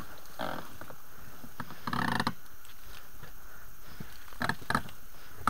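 Reeds and sedge swishing and the inflatable boat's rubber hull rubbing as it is hauled through marsh vegetation, in a few short bursts with a couple of sharp clicks near the end.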